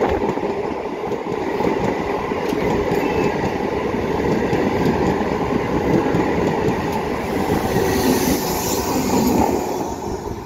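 Electric multiple-unit train passing close by, its coaches' wheels rumbling and clattering along the rails. A rushing hiss swells about eight seconds in, and the noise eases slightly near the end as the last car goes by.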